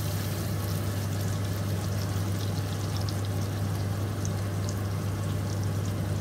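Onion and garlic frying in oil in a nonstick pan: a steady sizzle with small scattered crackles, left undisturbed, over a constant low hum.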